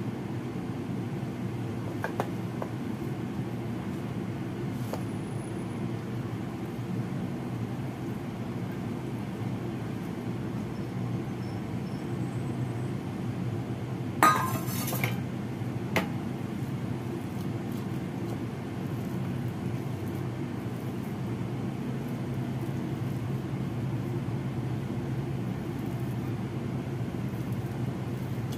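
A spatula clinking and scraping against a stainless steel bowl, with one loud clatter about halfway through and a few lighter clicks, over a steady low hum.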